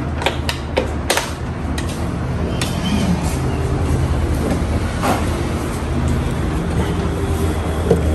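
Cordless vacuum cleaner running steadily with a constant low hum, its nozzle picking up dust, with a few sharp clicks along the way.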